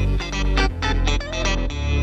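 Background music: an electronic track with a steady beat, deep bass and plucked guitar-like notes.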